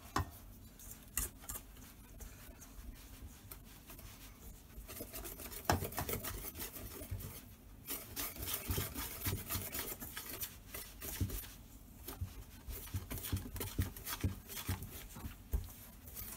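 A spoon stirring flour, sugar and egg in a stainless steel mixing bowl, scraping and knocking against the metal in irregular strokes. The strokes are sparse at first and come thick and fast from about five seconds in.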